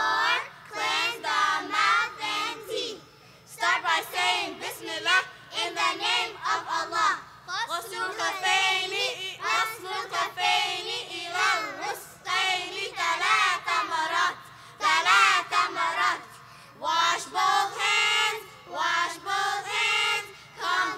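Children's voices singing a song together in phrases of a few seconds, with short breaks between the lines.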